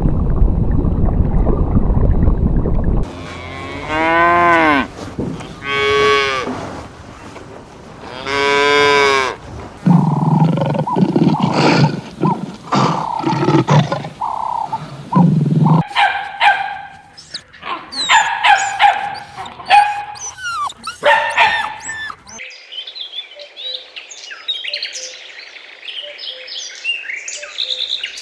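Cattle mooing: three drawn-out calls falling in pitch, a couple of seconds apart, then lower lowing. In the last third they give way to a run of short, quick chirping calls from smaller farm animals.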